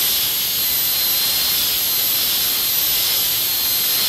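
High-speed air-turbine dental handpiece running with a diamond bur while reducing the occlusal surface of a plastic dentiform molar. It makes a steady airy hiss with a thin, slightly wavering high whine.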